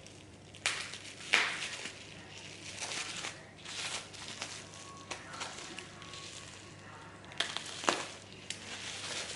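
Packaging being handled: wrapping crinkling and rustling in irregular scrunches, with sharper crackles about a second in and again near the end.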